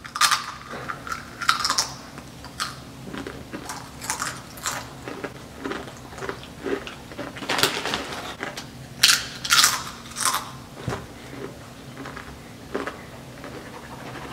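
Doritos tortilla chips crunching as they are bitten and chewed, with the foil chip bag crinkling, in a string of sharp crackling bursts; later, a pen scratching hard across a notebook page, the loudest scratches about nine to ten seconds in.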